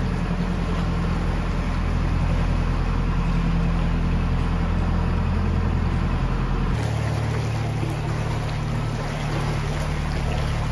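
Narrowboat engine running steadily inside a brick canal tunnel, a low hum over a noisy wash; its note changes about two-thirds of the way in.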